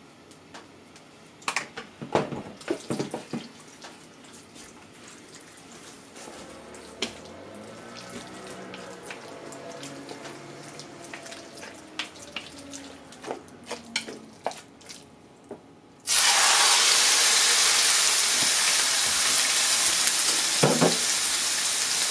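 Raw chicken pieces tipped into hot oil in a frying pan set off a sudden loud, steady sizzle about three-quarters of the way in. Before that there are a few light clicks and knocks, and one knock comes near the end.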